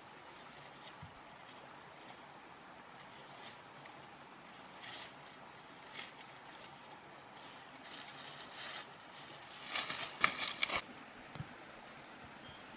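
Bare footsteps rustling and crunching through dry leaves and brush, with a short run of loud crackles about ten seconds in, over a steady high insect drone.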